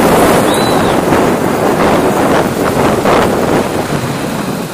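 Wind rushing over a helmet camera's microphone while riding a Bajaj Pulsar RS 200 motorcycle, covering the engine and the traffic; the rush eases a little near the end.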